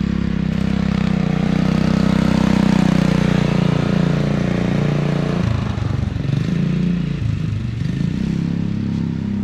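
Small engine of a cyclekart built as a 1929 Bob Gerard Riley Special running steadily as the kart drives past, loudest as it comes close about three seconds in. After about five and a half seconds the engine note turns uneven as the kart pulls away.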